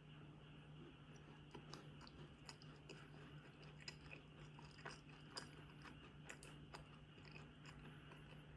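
Faint chewing and biting of food, with scattered soft clicks, over a low steady hum.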